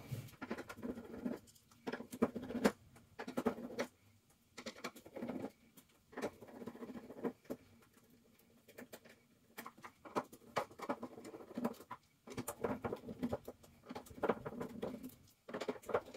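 Hands and a screwdriver working on a metal M4-style airsoft gearbox to open it: irregular small clicks, scrapes and taps of metal parts, with short pauses between them.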